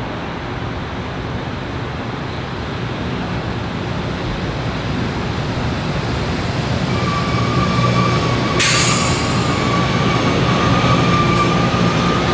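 Metro-North electric commuter train running past on the track, a steady rumble that grows louder. From about seven seconds in a steady high-pitched whine runs over it, and a little later there is one sharp crack.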